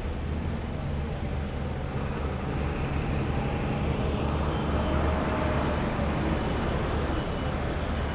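Street traffic: a steady low rumble of engines and tyre noise from passing vehicles, swelling slightly in the middle.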